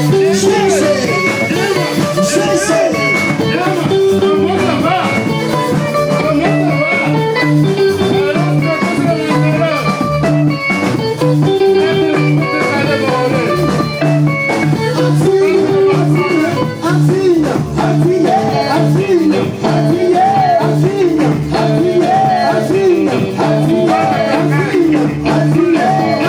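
Live Congolese band music: an electric guitar plays lead lines over a steady bass line, with a voice singing in the later part.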